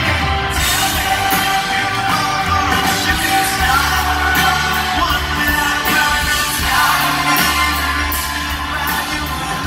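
Live rock band playing through a concert PA: a male lead singer sings into a microphone over drums and the band.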